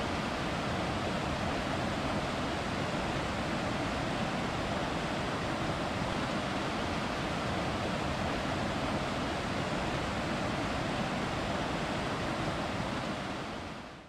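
Steady rush of a fast mountain stream tumbling over rocks, an even white-water noise that fades out near the end.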